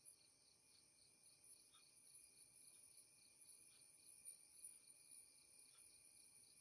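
Near silence: a faint steady high-pitched hiss, with a few very faint clicks of laptop keys being pressed.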